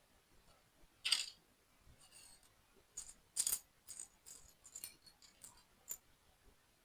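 Small plastic toy building pieces rattling and clicking against each other as they are handled: a short rattle about a second in, a louder clatter around three and a half seconds, then a run of lighter clicks.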